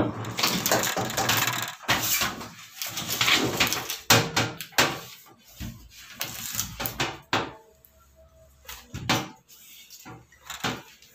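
Handling noise at the back of a washing machine: the power cord and hoses being pulled and moved by hand against the metal cabinet, with rustling and several sharp clicks and knocks, busiest in the first half.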